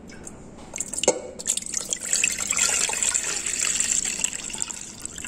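Coconut water being poured from a container into a pan, splashing steadily for about three and a half seconds and easing off near the end. It is preceded by a couple of light knocks about a second in.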